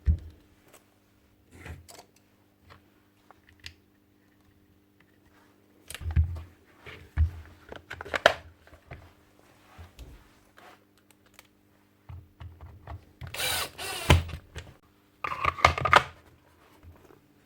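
Clicks, knocks and rattles of tool parts and hand tools being handled while a rotary hammer is put back together. Near the end come two louder, rougher bursts of about a second each.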